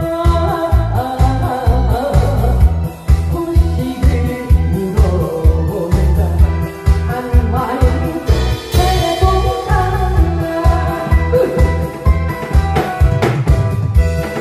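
A woman singing a Korean trot song into a headset microphone over a fast disco-style backing track with a steady, heavy beat, drumming along live on a kit with a cymbal. A cymbal crash rings out about nine seconds in.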